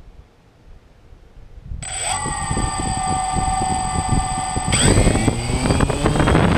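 DJI Phantom 1 quadcopter's four motors and propellers starting up with a steady whine about two seconds in, then spooling up near five seconds in, the whine rising in pitch and getting louder. Wind buffets the microphone.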